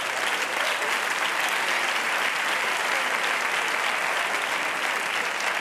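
Theatre studio audience applauding steadily after a punchline: dense, even clapping from a large crowd with no break.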